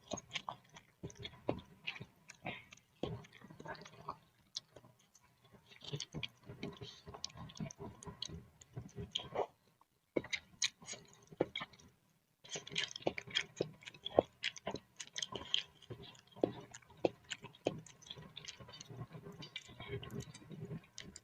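Close-miked eating of boiled instant noodles in soup: irregular chewing with many short, wet mouth clicks and smacks. The sound drops out briefly about ten seconds in.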